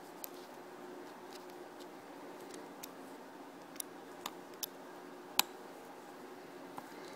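Hex driver turning small screws on an E-Razor 450 RC helicopter's rotor head, giving about six scattered small metallic clicks, the loudest about five seconds in, over a faint steady hum.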